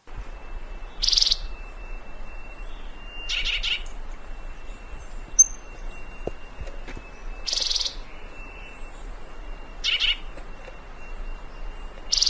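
Fruterito picudo, a euphonia, repeating a short high call five times, about every two and a half seconds, with a faint steady high tone in the background.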